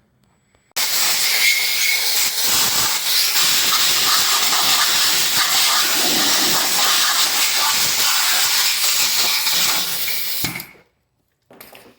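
Compressed-air blow gun hissing steadily as it blows brake dust and brake cleaner off the brake caliper bracket's contact parts. It starts about a second in, cuts off suddenly near the end, and is followed by a short, fainter burst.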